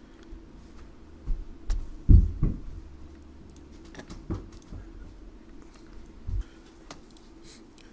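Scattered computer mouse clicks and a few dull low thumps, the loudest about two seconds in, over a faint steady hum.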